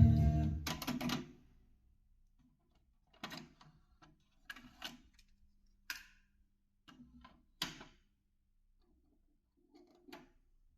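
Guitar-and-vocal music playing from a Grundig Fine Arts CF21 cassette deck stops about a second and a half in. A series of short mechanical clicks and clunks follows at uneven intervals, typical of the deck's transport keys and cassette mechanism being worked.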